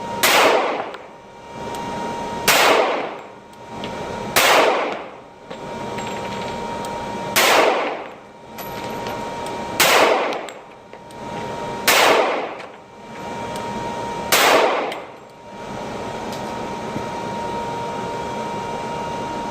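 Seven pistol shots fired one at a time, about two to three seconds apart, each followed by a ringing echo; the last comes about fifteen seconds in. A faint steady hum lies underneath.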